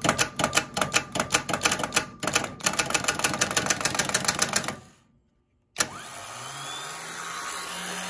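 Delco 29MT starter on the bench: a rapid run of clacks from its solenoid. After a short break the starter motor spins up with a rising hum. The solenoid is faulty: it has failed internally and only now and then makes the electrical connection that runs the motor.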